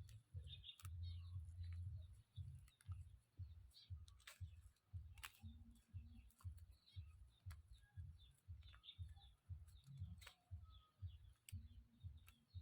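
Faint, rhythmic low thuds, about two a second, with scattered light clicks over them.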